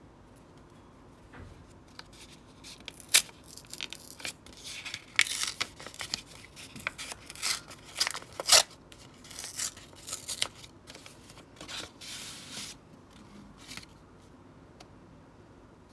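Paper envelope torn open by hand: a run of sharp tearing and crinkling sounds starting about a second and a half in, then a longer paper rustle as the invitation card is drawn out, dying away near the end.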